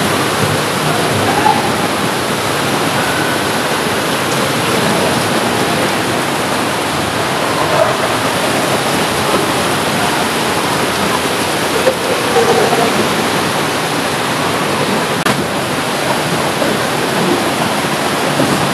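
Rushing water, a loud, steady wash of noise that holds without a break.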